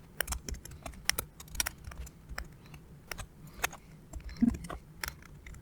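Irregular light clicks and taps, about a dozen spread over a few seconds, from hands and small parts being handled on an opened laptop.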